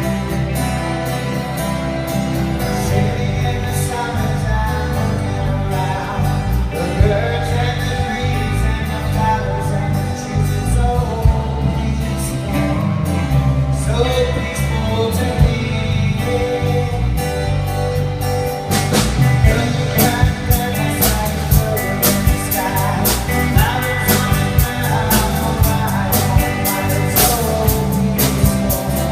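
Live rock band playing with singing over guitar, bass and drums. The drum and cymbal hits become much denser about two-thirds of the way through.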